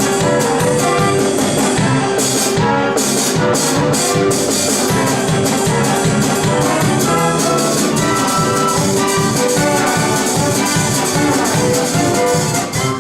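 Instrumental music from the show's orchestra, played with a steady beat and held notes, dropping away at the very end.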